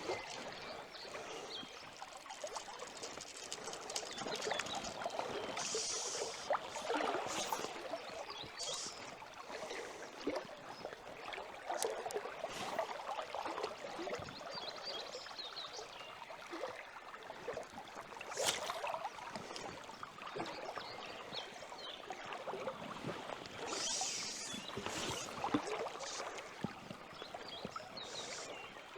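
River water running and splashing over shallows, an uneven rushing sound with small clicks and splashes scattered through it.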